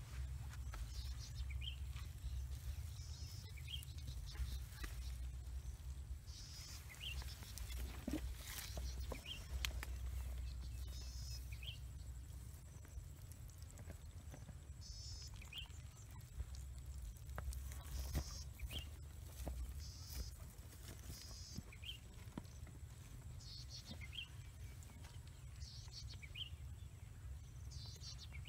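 Outdoor ambience: a low rumble, a short high chirp repeating every two seconds or so, and brief buzzy trills now and then, with a few sharp clicks.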